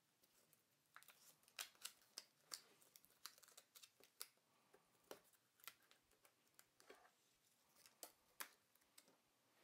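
Faint, scattered clicks and crinkles of hands handling a laptop's LCD panel cable and the tape that holds it down.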